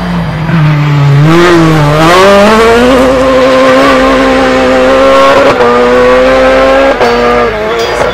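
Rally car at full throttle driving away, its engine note climbing and holding at high revs, then dropping sharply twice as it shifts up a gear.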